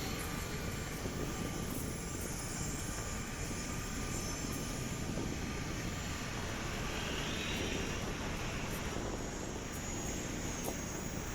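Steady street traffic noise: the engines and tyres of passing vehicles over a constant low rumble, with one vehicle passing a little more brightly about seven seconds in.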